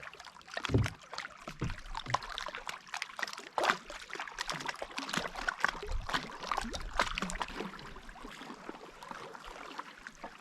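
Canoe paddles dipping and pulling through lake water: irregular splashes, drips and trickles, with a couple of louder splashes in the first few seconds.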